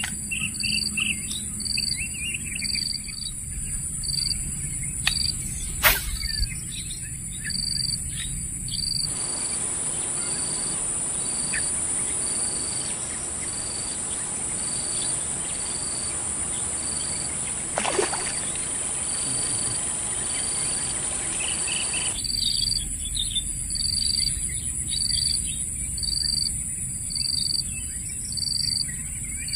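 Outdoor insect and bird sounds over flooded grassland: a high chirp repeating evenly about once or twice a second over a steady high-pitched insect drone, with scattered short bird chirps. A single sharp click comes about six seconds in.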